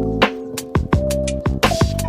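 Electronic background music: sharp drum hits over held synth chords that change pitch.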